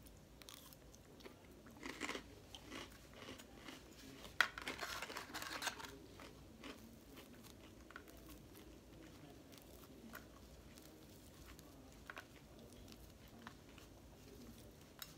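A mouthful of lettuce salad being chewed, with crisp crunches for the first six seconds or so, then only faint, scattered small clicks.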